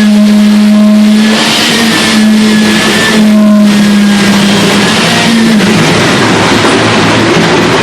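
Electric concrete vibrator running at full speed with a steady high hum. About five and a half seconds in its pitch drops and the sound turns rougher, as the head works under load in the wet concrete.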